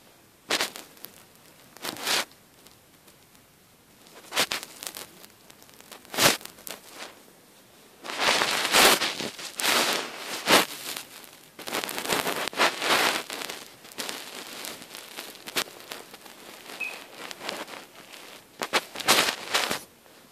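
Rustling and crackling handling noise, with hands, fabric and the knitted doll clothes brushing against the phone's microphone in irregular short bursts that come thickest around the middle and again near the end.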